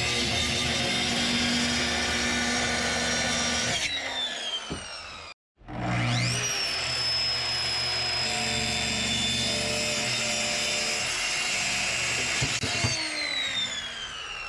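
Circular saw cutting an opening in a cabinet panel. The blade winds down with a falling whine about four seconds in. After a short break it spins up with a rising whine, cuts steadily, and winds down again near the end.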